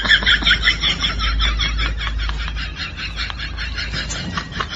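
A small child's high-pitched giggling, a rapid run of short laughs about six a second that slowly fades out near the end.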